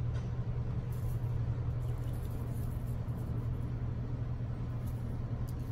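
A steady low hum, with no strikes or changes.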